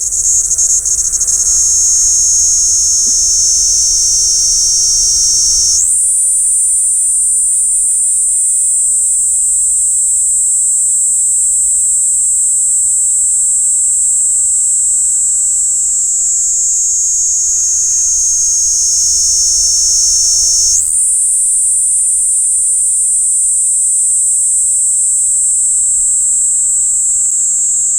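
Kaempfer cicada (niiniizemi) singing close up through a parabolic microphone: one continuous, loud, high, shrill buzz. It slowly sinks in pitch, then jumps back up abruptly, about six seconds in and again about twenty-one seconds in.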